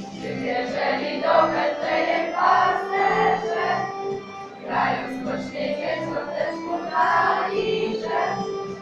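A class of schoolchildren, boys and girls together, singing a Christmas carol in unison. It is sung line by line, with short breaks between phrases.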